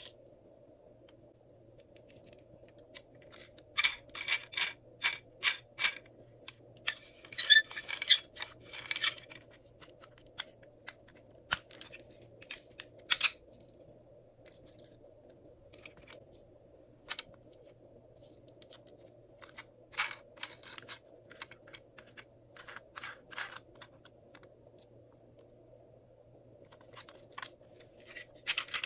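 Glossy slime being worked by hand, giving sharp wet clicks and pops as air pockets burst: a run of about two a second, then a denser crackly cluster and scattered single pops.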